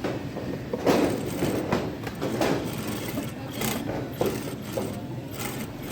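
Sewing machine running with an uneven mechanical clatter and irregular louder knocks.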